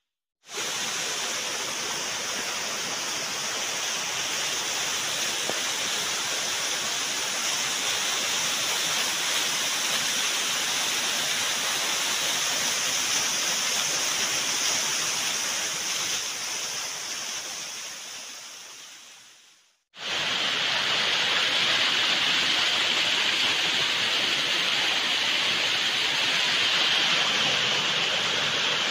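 Waterfall: the steady rush of water pouring down onto rocks. Over the last few seconds before the two-thirds mark it fades out to a moment of silence, then starts again abruptly and a little louder.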